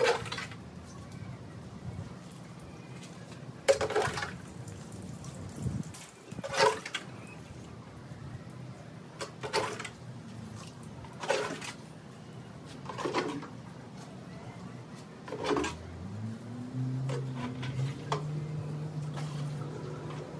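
Water scooped from a plastic bucket with a small cup and poured onto potted plants in short splashes, seven times at roughly two-second intervals. A low steady hum comes in near the end.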